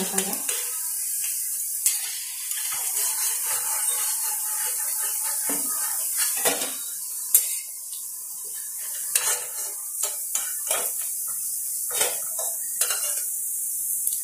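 Pakoras deep-frying in hot oil in an iron kadai, the oil sizzling steadily, while a steel spatula repeatedly scrapes and clinks against the pan and a steel plate as the fried pakoras are lifted out.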